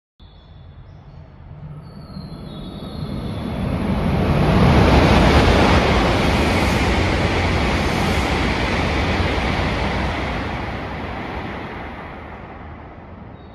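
Hokuriku Shinkansen Kagayaki express passing through the station at speed without stopping. It is a rushing noise that builds over about five seconds, holds for several seconds, then fades away, with a thin high hiss above it.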